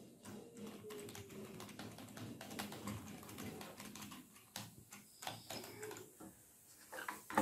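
Typing on a Logitech MK275 wireless keyboard's quiet, low-profile keys: a quick, irregular run of soft key clicks, with a brief lull about six seconds in.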